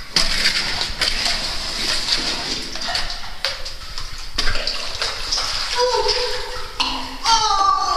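Water splashing and sloshing as a caver wades through a flooded cave streamway, with a steady rush of water under the splashes.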